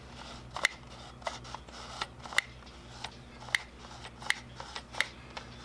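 Damaged Canon zoom lens clicking as it is turned by hand: a string of sharp, irregular clicks, about two to three a second. The clicking is the fault left by the lens being knocked onto concrete, which also stopped it from autofocusing.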